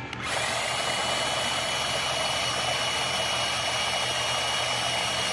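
A small power tool running steadily: a constant hiss with a thin, steady high whine on top.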